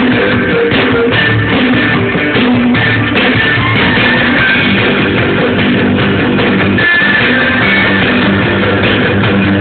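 Live rock band playing loudly over a PA, with electric guitar and drum kit, heard from amid the crowd.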